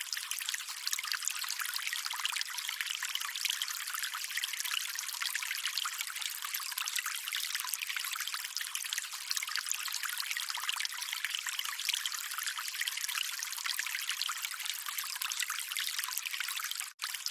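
Calm running water, a steady even rush of high, hissy sound with no deep rumble. It cuts out completely for a split second near the end.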